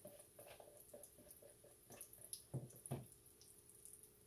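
Pancake batter frying in a hot skillet: faint sizzling with scattered small crackles and pops, two slightly louder pops just under three seconds in.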